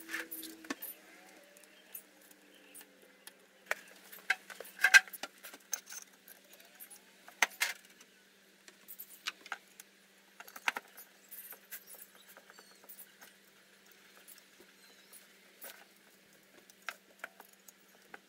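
Small metal parts and tools clinking and tapping as they are handled on a workbench, in scattered sharp clicks with the loudest about five and seven and a half seconds in.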